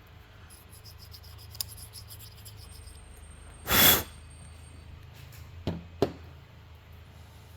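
A short, loud puff of breath about four seconds in, likely blown to clear dust off a 3D printer's hotend part. Around it are a few small clicks and taps from handling the hotend parts.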